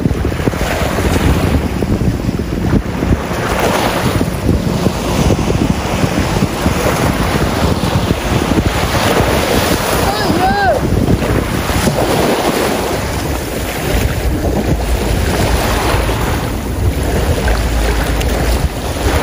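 Wind buffeting the microphone over small waves breaking and washing against a grassy shoreline, in uneven gusts and surges. A brief pitched call sounds once about halfway through.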